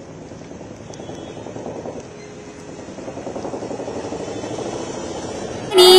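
Traffic on a rain-wet street: a steady hiss with a vehicle engine growing louder through the second half as it draws near. Loud music with singing cuts in suddenly just before the end.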